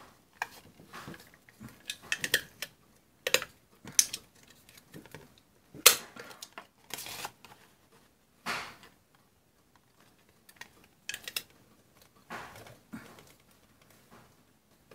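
Handheld paper border punch clacking shut on white cardstock, a sharp click every second or so at an uneven pace, with the paper rustling as it is moved along between punches.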